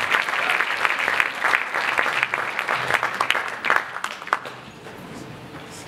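Audience applauding, a dense round of clapping that thins out and dies away about four and a half seconds in, leaving a few last scattered claps.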